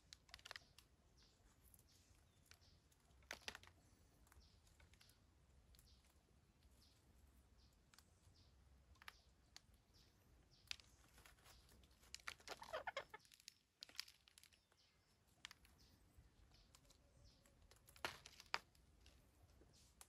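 Faint, scattered short calls and clicks from a small group of green parakeets sitting in a bush, with a brief burst of chattering about twelve seconds in and another sharp call near the end.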